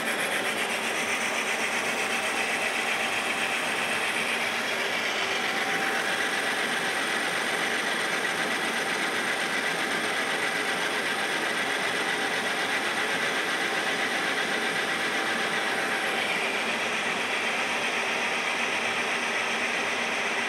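Engine lathe running under load as a carbide tool takes a light facing cut across a spinning iron part: a steady cutting hiss over the machine's running hum, its tone shifting slightly about 6 and 16 seconds in.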